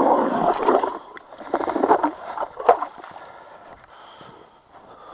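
Steady grinding noise that cuts off about a second in, followed by splashing, sloshing and scattered knocks, typical of slush and water in a freshly drilled ice hole.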